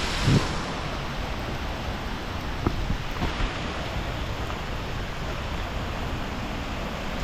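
Steady rushing noise of monsoon rain, with a few soft thumps, the loudest about a quarter of a second in.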